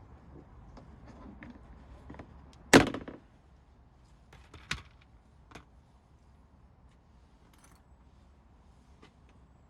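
One sharp thunk about three seconds in, then a smaller click and a few light taps.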